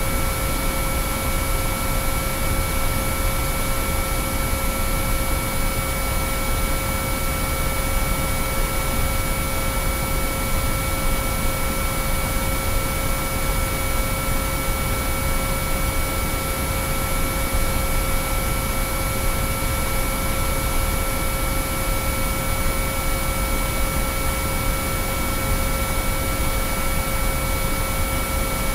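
Binaural-beat sine-wave tones: several steady pure tones at different pitches, held unchanging over a constant white-noise hiss.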